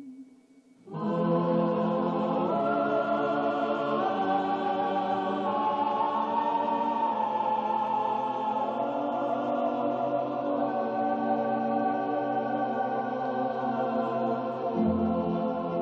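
Slow background music of long held chords that change every few seconds. It starts about a second in, after a brief near-silence.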